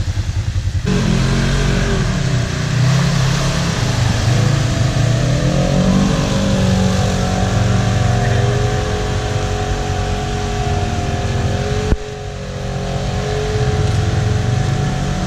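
Off-road vehicle engine revving hard, its pitch wavering up and down and holding high for a few seconds. A sharp knock comes about twelve seconds in, after which the revs dip and build again.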